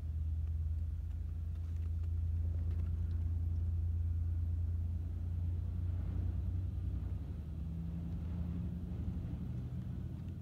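Long Island Rail Road diesel locomotive's engine running, a steady low drone whose note shifts slightly about seven and a half seconds in.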